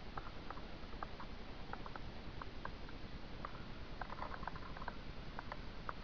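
Woodpecker pecking at dead wood while foraging: irregular light taps, a few a second, bunched more closely about four seconds in.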